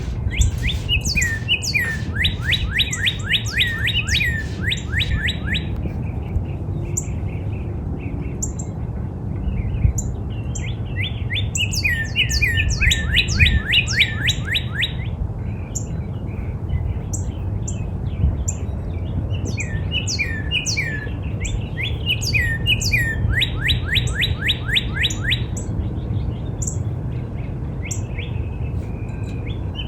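Northern cardinal singing three song bouts about ten seconds apart, each a few slurred whistles running into a fast series of down-slurred notes. Short high chirps and a steady low rumble go on underneath.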